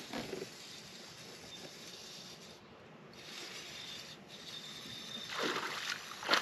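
Steady hiss of wind and water, with a hooked bass splashing at the surface near the end as it is reeled in close to the boat.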